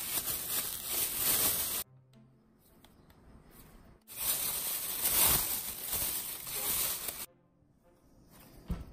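Thin plastic gloves crinkling and rubbing as hands knead and mix rice-flour dough in a glass bowl. There are two stretches that cut off abruptly, with quieter gaps between them.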